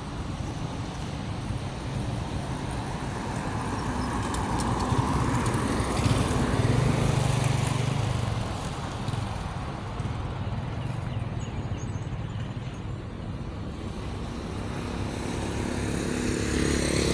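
Road traffic on a multi-lane road: a steady hum of passing cars, with one vehicle going by close and loudest about six to eight seconds in, rising and then fading.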